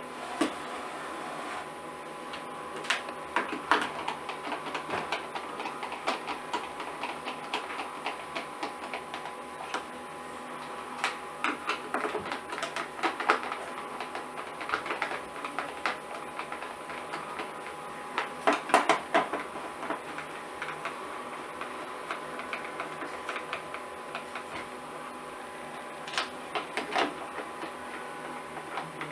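Hand screwdriver driving screws into the plastic front cover of an Orpat OCH-1400 convector heater. Irregular clusters of clicks and ticks come from the screws turning in the plastic and the housing being handled, over a steady faint hum.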